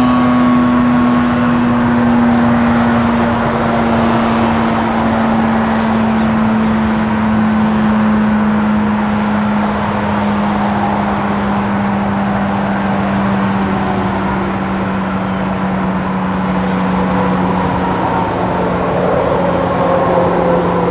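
Federal Signal STH-10 outdoor warning siren sounding one strong, steady tone that slowly falls in pitch, over the constant rush of interstate traffic.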